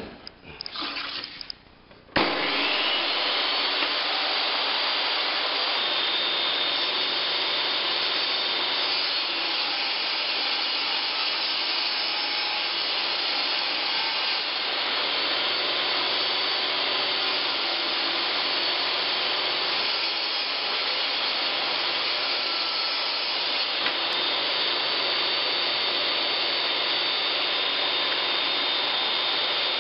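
DeWalt table saw and the shop vacuum hooked to it for dust collection, switched on about two seconds in and running steadily while a laminate plank is ripped along the fence.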